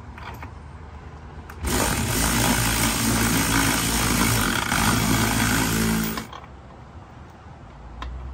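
Handheld power tool spinning nuts down onto the exhaust manifold brackets of a 3.6 Pentastar V6, running in one burst of about four and a half seconds that starts and stops suddenly.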